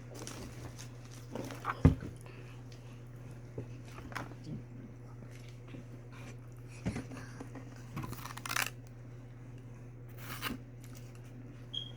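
Scattered short eating and food-handling noises: clicks, crunches and rustles, the sharpest about two seconds in and the brightest near 8.5 and 10.5 seconds, over a steady low hum.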